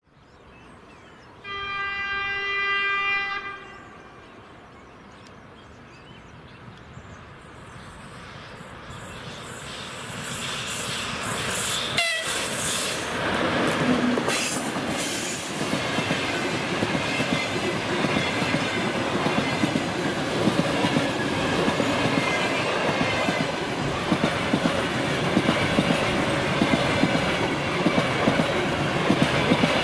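Electric locomotive horn sounding one held note for about two seconds, then an express passenger train drawing closer with a growing rumble. A sharp click comes about twelve seconds in, then the EP2K electric locomotive and its passenger coaches go past at speed with loud, steady rolling noise and clickety-clack of wheels over the rails.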